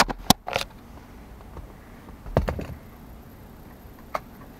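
Several sharp clicks and knocks from hands handling plastic dash trim and the camera: three quick ones at the start, a short cluster a couple of seconds in, and a single click near the end.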